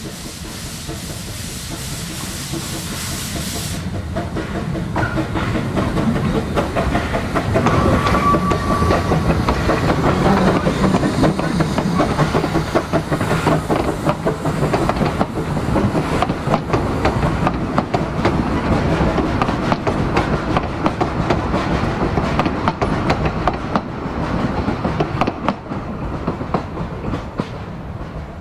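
Baldwin 4-6-2 narrow-gauge steam locomotive no.2 working past close by under steam with its train, growing louder as the engine passes. The coaches then clatter past over the rail joints. A high hiss stops about four seconds in.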